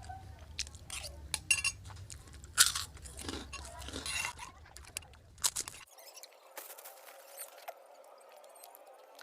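Close-up mukbang eating sounds: crunching and chewing of seblak and crackers, with sharp clinks of utensils against a bowl. A low background hum cuts off suddenly about six seconds in, leaving only faint clicks.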